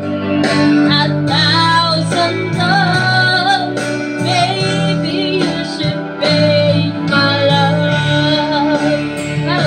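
A woman singing karaoke into a microphone over a music backing track with guitar.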